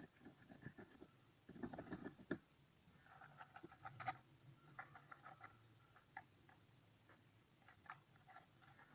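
Homemade slime being worked by hand: faint, irregular sticky clicks and crackles, busiest a few seconds in, then sparser.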